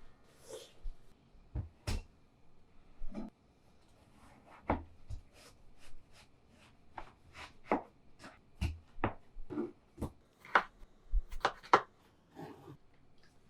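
Kitchen knife cutting watermelon on a cutting board: a series of irregular chops and taps, about one to two a second, with the loudest strikes in the second half.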